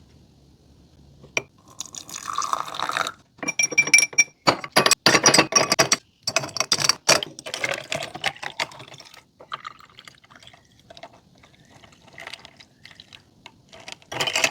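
Green tea being poured into a glass, splashing and clinking, with the pitch rising as the glass fills, then quieter scattered crackling.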